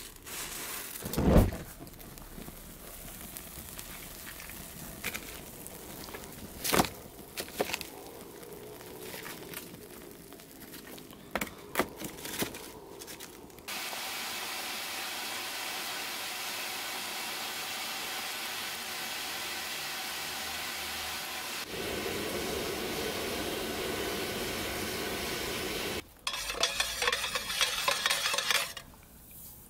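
Forge fire being lit: a bundle of matches flares about a second in, then burning kindling crackles with scattered sharp pops. About halfway through comes a steady rushing noise. Near the end, a dense crackling sizzle from quenching oil being heated by a hot rebar rod standing in it, smoking.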